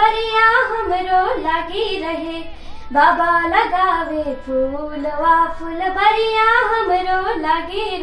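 A single high voice singing a folk song unaccompanied, in long wavering phrases with many turns on each note and a short break about three seconds in.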